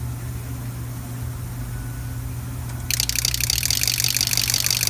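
A steady low hum, then about three seconds in a set of eight used 6.0L Power Stroke diesel injectors, driven through the truck's FICM harness, breaks into a loud, fast, even chatter.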